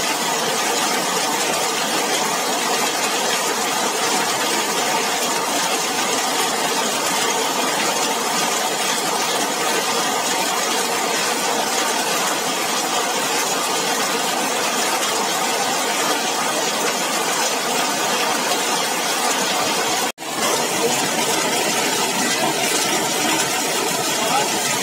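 Heavy rain falling steadily on a corrugated zinc roof, an even, dense patter. The sound cuts out for an instant about twenty seconds in, then carries on unchanged.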